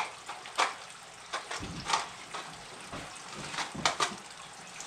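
Caramel-coated popcorn being poured and shaken into plastic party cups: a string of short, dry rattles and rustles.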